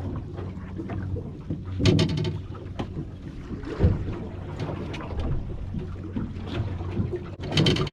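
Boat engine running steadily, with irregular knocks and splashes against the hull and some wind on the microphone.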